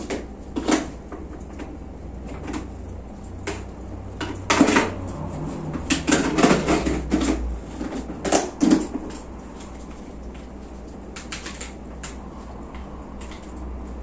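Scissors handled at the hair in hairdresser play: irregular clicks and short rustles, busiest about halfway through, then sparser.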